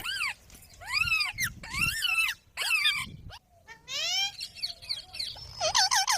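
Pet green parrot giving a series of about six loud calls, each rising and then falling in pitch, with short gaps between them.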